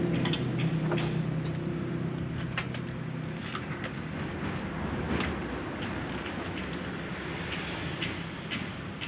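A motor runs with a steady hum that fades over the first few seconds into a low rumble. Scattered small metallic clicks of hand tools are heard on the outboard's trim/tilt mounting.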